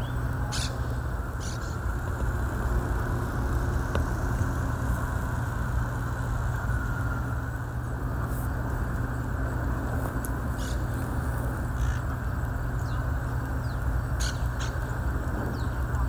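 Steady low traffic rumble, with a few short, harsh monk parakeet calls scattered through it.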